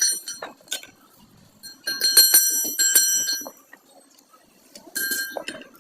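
Metal struck repeatedly, most likely with a hammer, each blow ringing with a bell-like tone. There is a quick run of blows in the middle and a single blow near the end.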